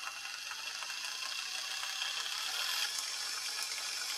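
Ryobi 18V One+ cordless caulking gun's electric gear motor running steadily as it drives the toothed push rack, with the speed being turned up from low toward high; the whir grows slightly louder over the first few seconds.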